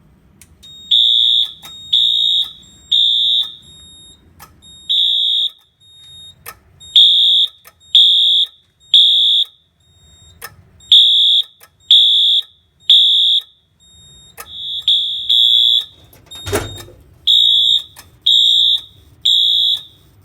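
Wheelock AS-24MCW horn-strobe sounding its horn in loud, high half-second blasts, mostly in groups of three with a pause between groups (temporal-3 evacuation pattern). Sharp clicks from the strobe and sync module run between the blasts, and a single thump comes about three-quarters of the way through.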